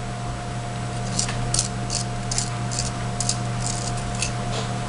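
A run of short, dry scratching strokes, about two to three a second, starting about a second in and stopping shortly before the end.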